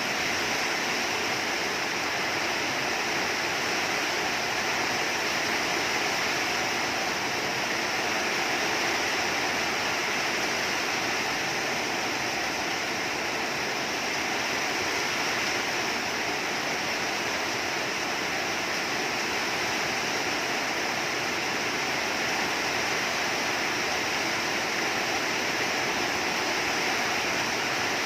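Rain falling steadily, a dense, even hiss with no let-up.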